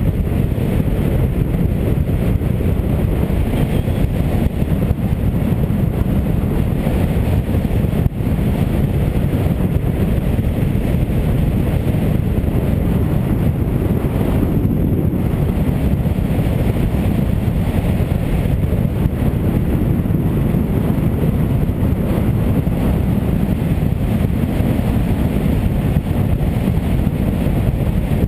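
Steady wind rush on the microphone over a Suzuki DR800 motorcycle's single-cylinder engine, running at an even cruising speed on the road.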